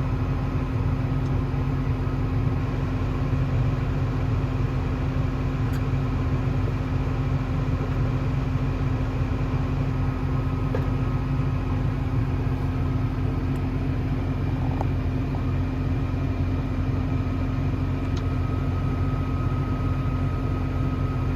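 Diesel engine of corn-harvest machinery running steadily: an unbroken low drone with a thin, steady whine above it.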